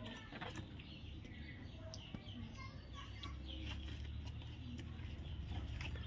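Faint, scattered soft bird chirps and short whistled notes with a few light clicks, over a low steady hum.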